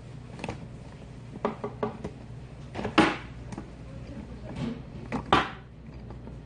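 Dishes and a stainless-steel bowl being handled on a table: a series of separate clinks and knocks, the loudest about three seconds in and again near the end, over a steady low hum.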